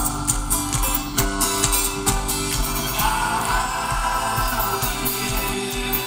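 Live folk-rock band playing through a stadium PA, with banjo, acoustic guitar and upright bass under singing, heard from among the crowd.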